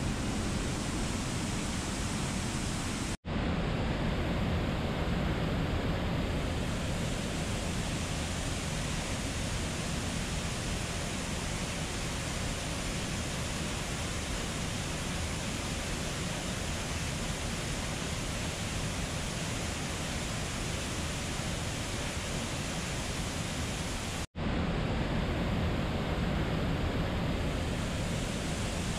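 Steady rush of a fast-flowing river running over rocks, cut by an instant of silence twice.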